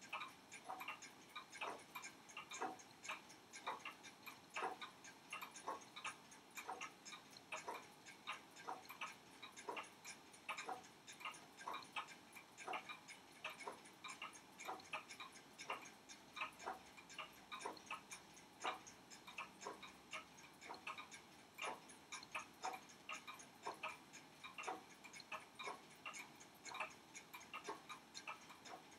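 Mechanical pocket watch ticking steadily and faintly, a continuous run of short, sharp ticks of uneven loudness.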